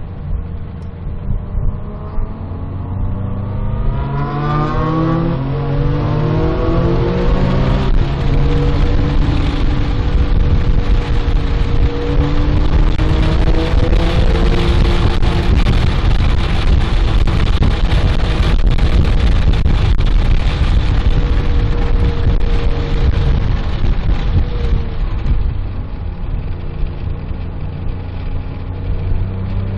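Porsche 997.1 GT3's 3.6-litre flat-six heard from inside the cabin on track, pulling hard through the gears with several rising sweeps in pitch in the first few seconds. It then runs at high revs with loud wind and road noise, and eases off near the end as the car slows for a corner.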